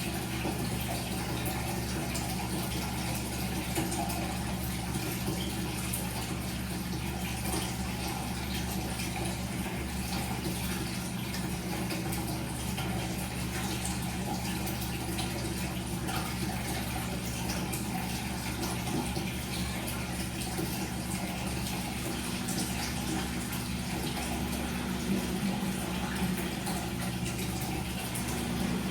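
Washing machine running through its wash cycle: a steady motor hum with water rushing and sloshing in the drum. One low tone in the hum grows a little stronger near the end.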